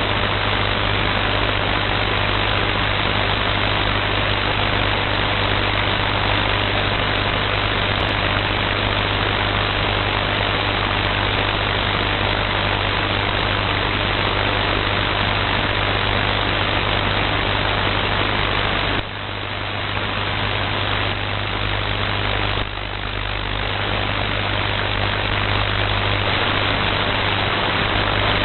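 Shortwave receiver's audio swamped by a strong radio interference noise: a dense, steady hiss with a low buzz underneath, dipping briefly twice in the second half. The noise blankets reception across roughly 5.5 to 13.6 MHz and drowns out stations.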